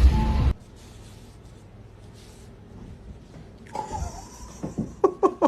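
Domestic cat giving a few short mews near the end, after a louder cat sound cuts off about half a second in; quiet room tone between.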